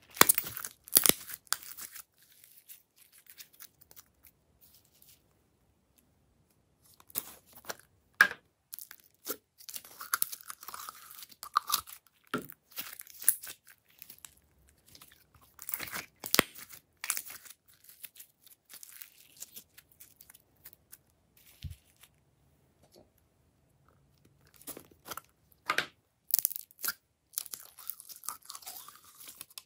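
Glossy slime squeezed, folded and stretched by hand: clusters of sticky clicks, crackles and pops, with quiet pauses of a few seconds between handfuls.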